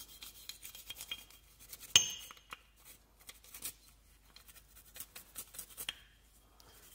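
A cleaning brush scrubbing a pistol slide in short scratchy strokes, then one sharp metallic clink about two seconds in, followed by scattered light clicks and taps as the slide is handled.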